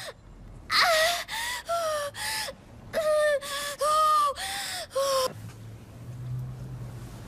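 A teenage girl crying out in short, high-pitched gasps of pain through a labour contraction, about nine in quick succession, stopping about five seconds in. A faint low hum follows.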